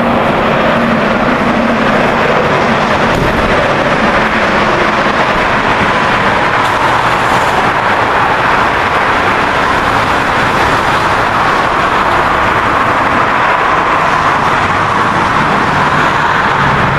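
Car driving along the road: a loud, steady rush of road and wind noise with no change in speed.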